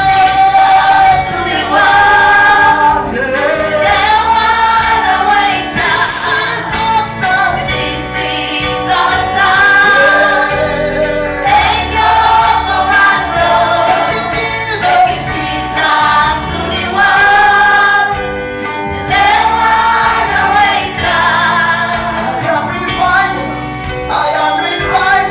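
A choir or congregation singing a gospel song, mixed voices in long sustained phrases.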